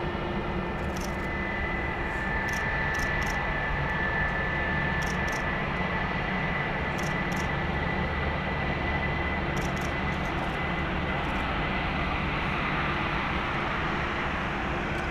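Airbus A320's IAE V2500 turbofan engines running at low thrust as the airliner rolls slowly after landing: a steady rumble and hiss with a high whine.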